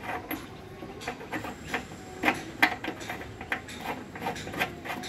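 Irregular light clicks and ticks, a few a second, of a small plastic fuel-filter cup being turned by hand onto a motorcycle's metal fuel tap, tightened by hand only.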